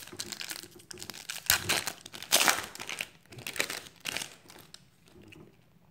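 Foil wrapper of a 2016 Certified football card pack being torn open and crinkled by hand, crackling in irregular bursts. The crackling is loudest about two seconds in and dies down after about four seconds.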